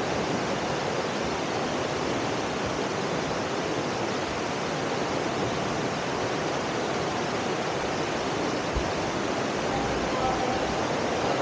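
River water flowing steadily through the cave, an even rushing hiss with no breaks.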